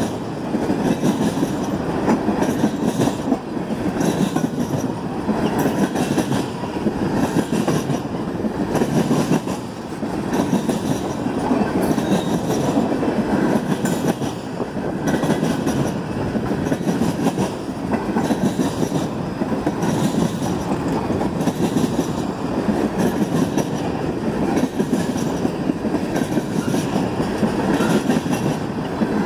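Steel wheels of a long train of railroad tank cars rolling past on the rails: a steady rumble with a rhythmic clickety-clack that swells and eases about every two seconds as each car's wheels go by.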